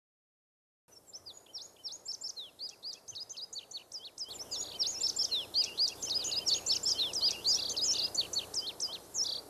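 Songbirds chirping in a busy chorus of many quick, high, falling chirps, starting about a second in and getting louder about four seconds in.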